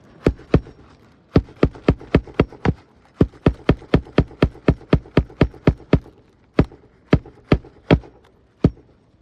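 Hammer blows on a roofing shingle, typical of nailing a shingle back in: sharp strikes in quick runs of about three a second, thinning out to a few spaced blows near the end.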